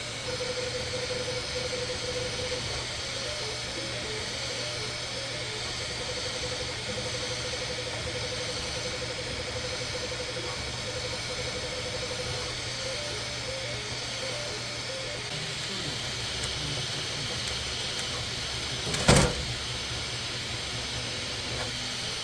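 Bambu Lab 3D printer running: steady fan noise, with the stepper motors whining in a warbling tone as the print head lays down honeycomb infill. The whine stops about 15 s in, and there is a single sharp knock about 19 s in.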